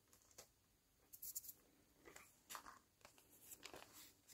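Faint crinkling of a cellophane bag being picked up and handled, a few short separate rustles.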